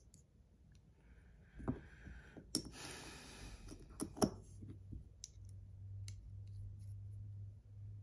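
Small metal clicks and taps of a fidget spinner's parts being handled as buttons are fitted and the spinner is set down, with a brief rustle about two and a half seconds in and two sharper clicks around four seconds. From about halfway a faint steady low hum sets in.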